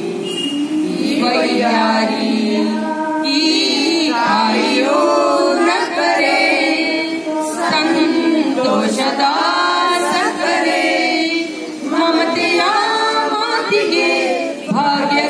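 Group of schoolchildren and women teachers singing a song together.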